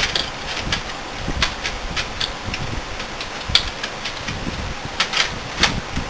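Irregular clicks, taps and light knocks of hands working inside an open steel PC tower case, handling a drive and ribbon cables in the drive bays. The sharpest click comes about three and a half seconds in.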